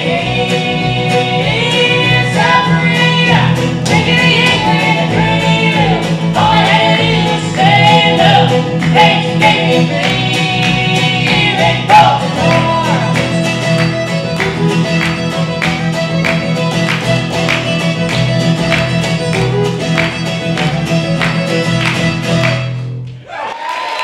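Acoustic string trio (acoustic guitar, fiddle and upright bass) playing a song with vocal harmonies, the guitar strummed in a steady rhythm. The song ends suddenly about a second before the end, and audience applause begins.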